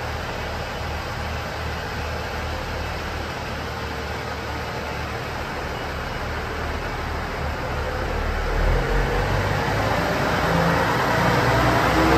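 Diesel railcar engine running steadily at low revs, then throttling up from about eight seconds in as the train pulls away, with a rising drone.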